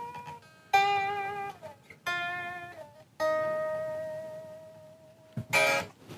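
Taylor Solidbody electric guitar, freshly restrung and unamplified, being tuned: single strings are plucked three times and left to ring, the pitch sliding down as a tuning peg is turned. Near the end comes a louder strummed chord.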